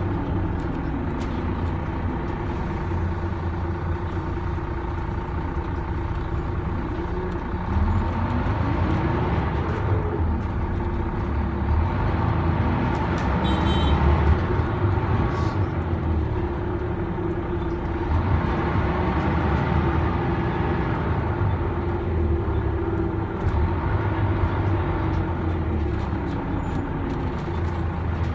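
Volvo DH12D 12-litre six-cylinder turbodiesel of a Volvo B12M bus, driving through a ZF Ecomat five-speed automatic, heard from inside the passenger cabin under way. There is a steady low rumble, and the engine note rises in pitch and drops back a few times as the bus pulls and the gearbox shifts.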